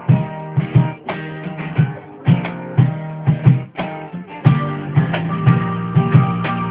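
Live band playing an instrumental passage with no singing: strummed guitar over a steady beat.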